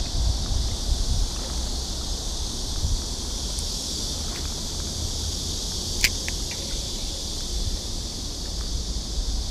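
Wind buffeting the microphone with a low rumble, over a steady high drone of insects. A single sharp click about six seconds in.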